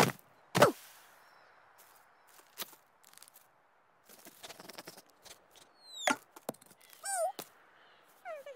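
Cartoon squirrel Scrat's voice: two loud yelps with falling pitch near the start, as he bounces down a slope. Then faint scuffling and a few short squeaks and chitters with sliding pitch in the second half.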